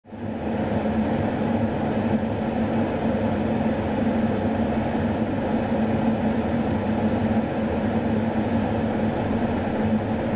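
Steady drone of a refuelling tanker aircraft in flight, heard from inside the boom operator's compartment: engine and airflow rumble with a low steady hum. It fades in at the very start and then holds level.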